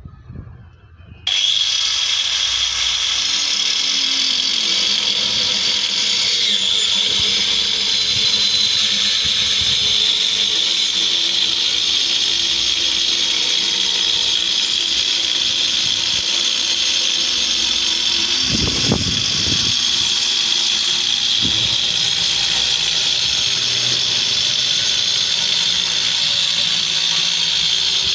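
Electric power tool switching on about a second in and running steadily at high speed, a high-pitched whine over a hiss, with a few low knocks in the middle.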